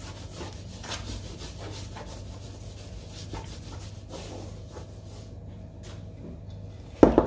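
Sugar scrub being stirred in a bowl: repeated gritty scraping strokes, easing off about five seconds in. A single loud thump comes near the end.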